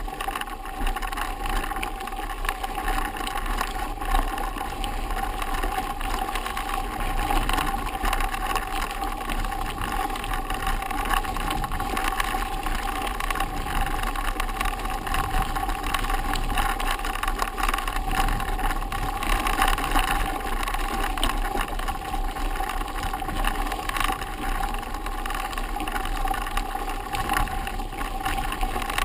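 Mountain bikes rolling over a rough, grassy dirt track: a continuous rumble and rattle, with small knocks from bumps throughout, heard from a camera riding along on a following bike.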